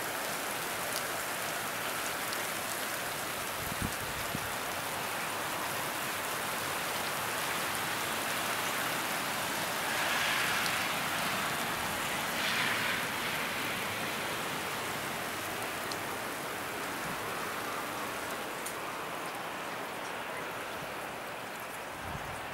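Steady rain falling, a dense even patter with scattered sharper drop ticks close by. It swells briefly louder twice around the middle and thins a little near the end.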